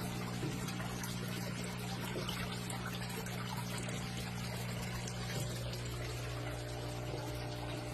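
Water trickling and pouring steadily in an aquaponics system, over a steady low hum.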